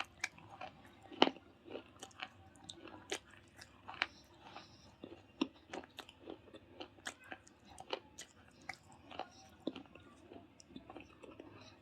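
Close-miked mouth chewing hard, brittle pieces of baked clay pebble pot and slate pencil: irregular sharp crunches and snaps, a few every second, between quieter grinding.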